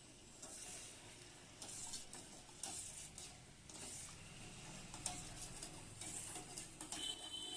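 A spoon stirring and scraping in a pot or bowl in repeated short strokes, roughly one a second.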